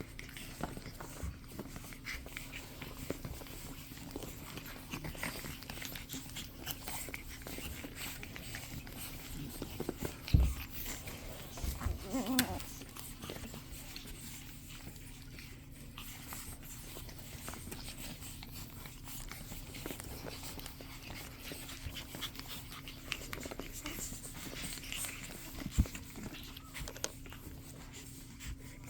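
Pug puppies shifting about close by, with quiet dog sounds and rustling over a steady low hum. A few louder bumps come about ten to twelve seconds in.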